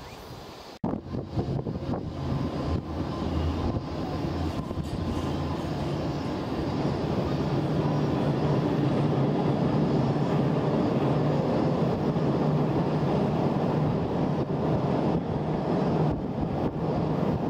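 Kurobe Gorge Railway torokko train, a locomotive hauling open trolley cars, running across a steel arch bridge: a steady rumble with a low hum that starts suddenly about a second in.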